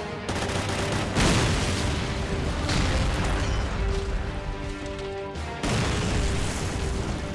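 Film sound-effect explosions over a music score: several blasts, the loudest about a second in and another about two thirds of the way through, each leaving a long rumbling tail.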